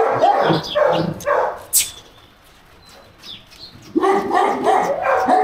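Bully kutta puppy yelping and whining in short calls, with a pause in the middle and the calls starting again near the end. One sharp click about two seconds in.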